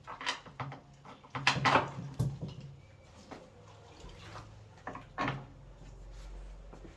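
Knocks and clatter of hard parts and tools being handled during work on a front-loading washing machine, a few separate hits with the loudest cluster about a second and a half in.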